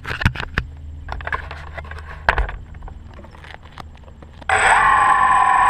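Scattered clicks and knocks, then about four and a half seconds in the DJI Phantom quadcopter's electric motors start abruptly and spin at a steady idle whine with several tones, loud because the camera is on the drone itself.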